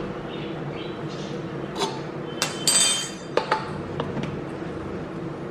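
A coffee tin knocking and clinking against a glass French press: several light knocks, one of them a brief ringing clink about halfway through, over a steady low hum.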